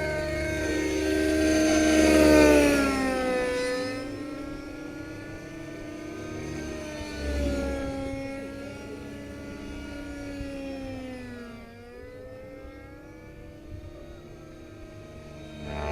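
Synergy N5c nitro RC helicopter in flight: its OS 55 HZ-H two-stroke glow engine and rotors whine, loudest about two to three seconds in, where the pitch drops. After that it sounds farther off, and the pitch dips and recovers near the end.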